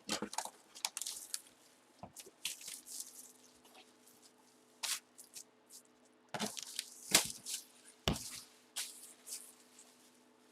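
Packaging being torn open and crinkled by hand while a trading-card box is opened: irregular sharp crackles and rustles, with a faint steady hum underneath.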